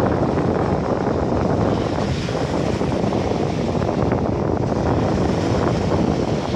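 Wind buffeting the microphone over the steady wash of small waves on a Sea of Azov beach; a constant low rumbling noise with no distinct events.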